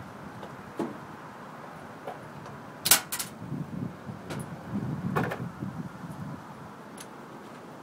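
A handful of sharp metal clicks and knocks from tools and fixture parts being handled during a fluorescent ballast repair, the loudest a quick double knock about three seconds in, over a low background rumble.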